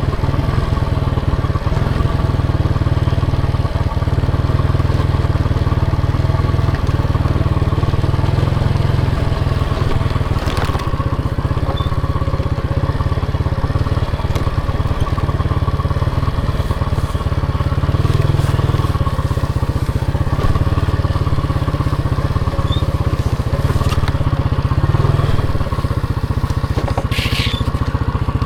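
Motorcycle engine running steadily under way during a ride, with a few brief clicks or rattles.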